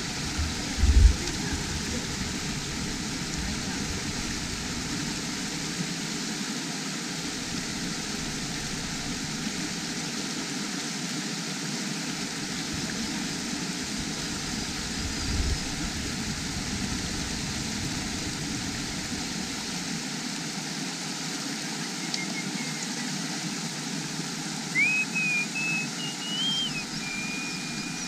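Steady outdoor noise, a hiss that does not change, with two low thumps, one about a second in and one about halfway. Near the end comes a brief whistled call, rising and stepping in pitch.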